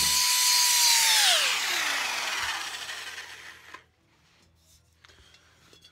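Electric drill with a strip disc, spinning with a high whine and hiss, then released: the whine drops steadily in pitch and dies away over about two seconds. A faint click follows as it is set down.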